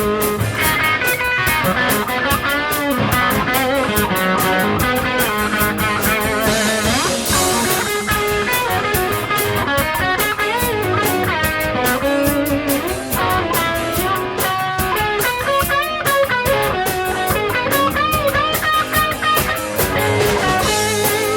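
Rock band playing, with an electric guitar lead full of bent and wavering notes over a drum kit.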